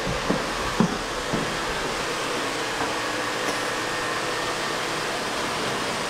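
Canister vacuum cleaner running with a steady whoosh of suction and motor hum, while its hose is dragged along; a few short knocks in the first second and a half.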